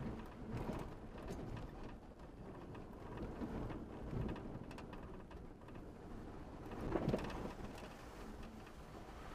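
Vehicle driving slowly over a rough, muddy dirt trail, heard from inside the cab: a steady noise of tyres on mud and gravel with scattered knocks and rattles as it goes over bumps, the loudest jolt about seven seconds in.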